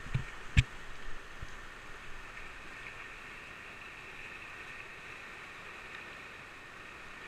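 Rushing whitewater of river rapids: a steady hissing rush of water. In the first second and a half a few sharp knocks of a hand on the camera, the loudest just over half a second in.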